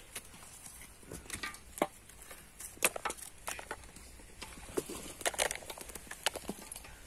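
Dry tamarind pods dropped by hand into a metal basin heaped with pods: irregular light clicks and rattles, one or two every second or so.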